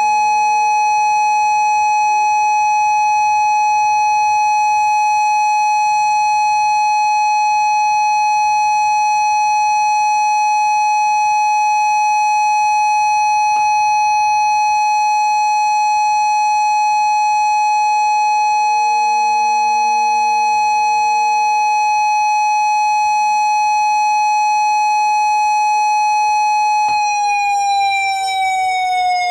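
Simulated outdoor warning sirens sounding a steady alert tone: one loud siren holds a single steady pitch while fainter, more distant sirens fade in and out beneath it, one winding up in pitch near the end. About two seconds before the end the loud siren starts winding down, its pitch falling.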